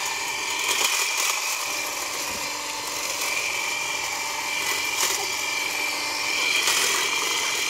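Electric hedge trimmer running steadily as its reciprocating blade cuts through brush, with a steady whine.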